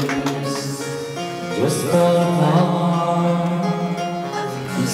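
A man singing a love ballad into a handheld microphone over a karaoke backing track, his voice amplified through a PA speaker. About a second and a half in, the voice slides up into a held note over sustained accompaniment chords.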